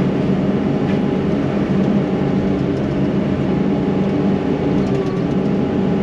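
Yanmar SV100 excavator's diesel engine running steadily with an even hum.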